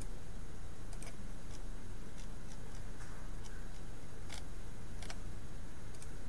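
Irregular light clicks at a computer, about one a second, over a steady low room hum.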